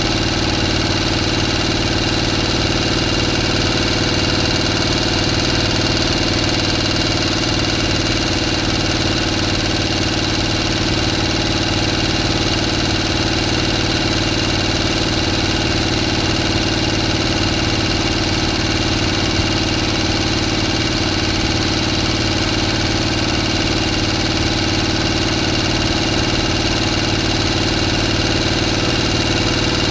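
A motor running steadily at constant speed, a continuous hum with steady higher whining tones and no change in pitch or level.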